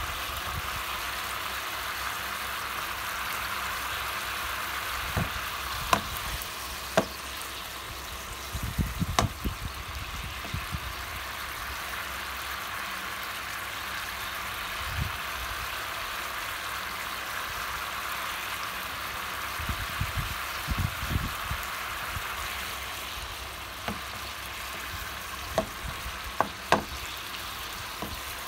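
Pork shoulder steaks sizzling steadily in oil, butter and their own juices as the liquid in the pan cooks off. A few sharp clicks of a metal fork tapping the pan are heard, several in the first ten seconds and again near the end.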